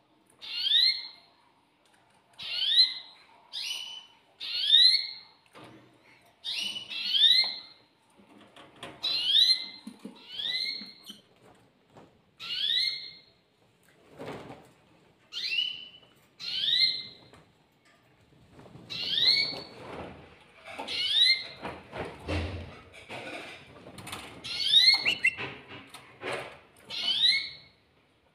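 Canary chirping: a short rising chirp repeated about once a second, often in quick pairs. Soft rustling sounds underneath, with a low bump about two-thirds of the way through.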